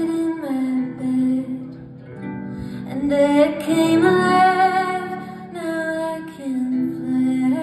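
Live performance of a slow, gentle song: a woman singing long, held notes over plucked-string accompaniment.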